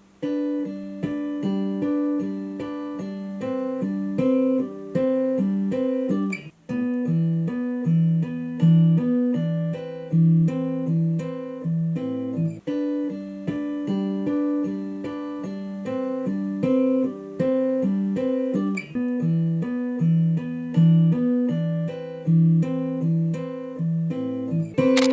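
Background music: fingerpicked acoustic guitar playing a steady, repeating pattern of plucked notes.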